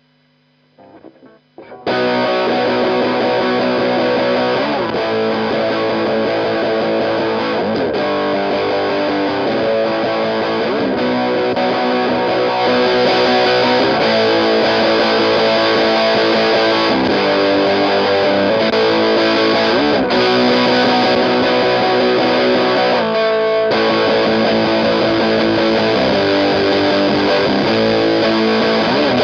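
Electric guitar played through a Walrus Audio Iron Horse LM308 distortion pedal, starting about two seconds in after a few faint string noises, with distorted chords and riffs. The tone turns a little louder and brighter about halfway, and there is a brief slide near the end.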